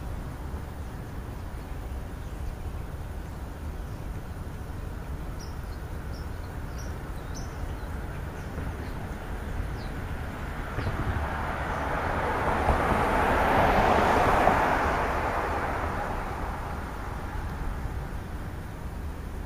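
A vehicle passing by: a broad rushing noise that swells over several seconds, peaks a little past the middle, then fades away. Earlier, a few faint short bird chirps sound over a steady low outdoor rumble.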